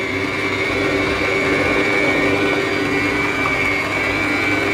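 Kenwood stand mixer running at speed, beating cheesecake batter in its stainless steel bowl: a steady motor whine with an even hum beneath it.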